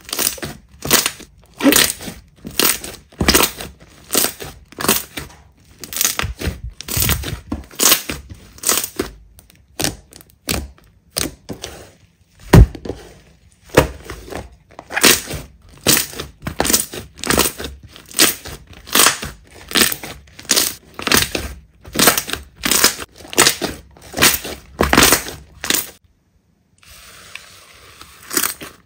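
Slime being pressed and squeezed by hand, crackling and crunching with each press in a quick steady rhythm. The pressing stops a few seconds before the end, leaving a faint hiss.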